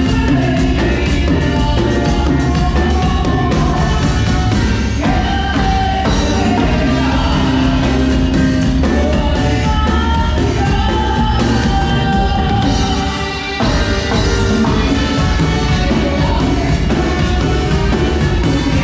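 Live band music with singing and drums, recorded through a camera's built-in microphone. There is a brief dip in loudness about two-thirds of the way through.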